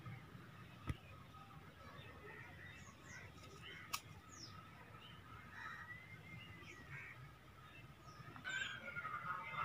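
Faint outdoor background with scattered bird calls and chirps, one a longer arched call about halfway through. Two sharp clicks, about a second in and about four seconds in.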